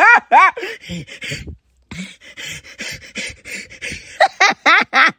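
A person's exaggerated, wheezing laugh: squeaky rising-and-falling yelps, then after a short break a run of breathy, gasping pants, then quick squeaky yelps again near the end.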